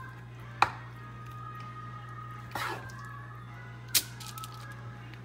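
Raw chicken thigh pieces being set down on a foil-lined baking sheet: two sharp clicks, about half a second in and again near four seconds, with a softer rustle between. A steady low hum runs underneath.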